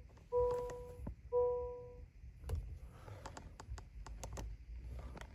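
An electronic warning chime beeping at a steady pitch about once a second, twice, then a run of sharp clicks from about halfway through.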